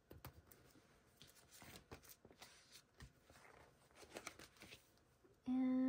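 Faint clicks and rustles of paper and small stationery being handled, picking up a little rubber stamp. Near the end, a much louder steady tone with one fixed pitch starts and holds for about a second.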